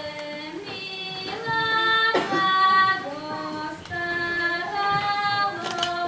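A single high voice sings a slow melody in long held notes, with no instruments.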